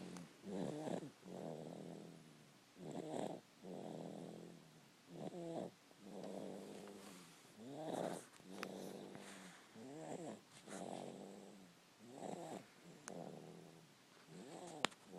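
Snoring in a slow, even rhythm, about one breath every two and a half seconds: each in-breath a short, rattling snore, followed by a longer, softer out-breath.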